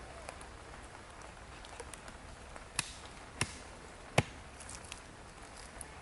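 Small axe chopping into a stick of wood: three sharp knocks around the middle, a little under a second apart, the last one loudest.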